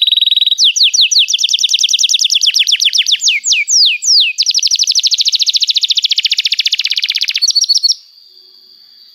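Domestic canary singing a long, loud song of rapid trills: fast sweeping notes repeated many times a second, changing pattern several times. It stops about eight seconds in, leaving only a faint steady high-pitched tone.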